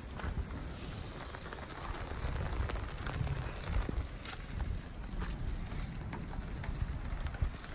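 Steady rain falling, with scattered faint taps.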